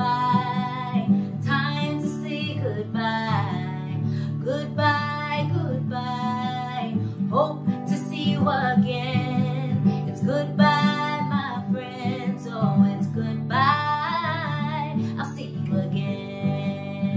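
A woman singing a children's goodbye song while strumming chords on a Taylor acoustic guitar.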